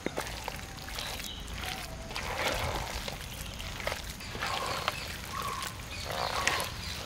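Hands mixing raw chicken pieces in a thick, wet masala coating of yogurt, gram flour, rice flour and egg, squishing in several irregular spells.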